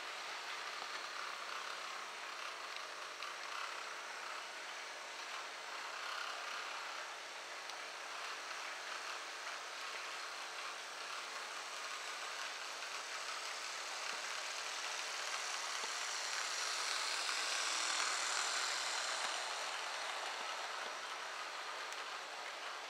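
Model train running on its track, a small diesel locomotive hauling passenger coaches: a steady hiss of motor and wheels on rails with a faint motor hum, growing louder about two-thirds of the way through as the coaches pass close by, then easing off.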